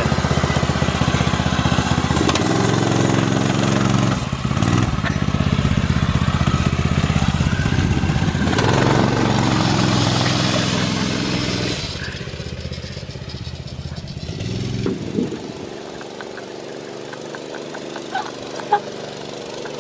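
Single-cylinder four-stroke Predator engine in a small dirt-bike frame running just after starting, its pitch rising and falling as it is revved a couple of times, then settling lower and quieter about twelve seconds in.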